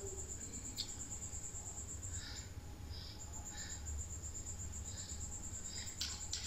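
A cricket trilling faintly: a high, rapidly pulsing trill that breaks off briefly about halfway through, over a low steady hum.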